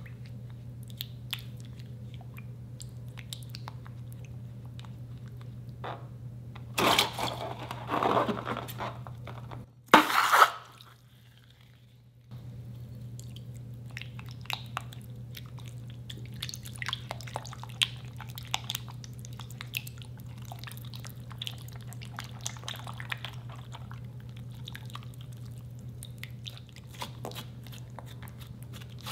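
Silicone spatula stirring white glue slime in a glass bowl: wet squishing with many small sticky clicks as the mixture thickens into slime. There are louder bursts about seven to eight seconds in and again at ten seconds, then a couple of seconds of near silence.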